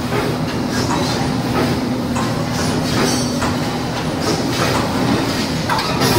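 Automatic wire mesh panel welding machine running, with a steady hum and repeated clanks and clatter, about one or two a second, as it feeds and welds the wire.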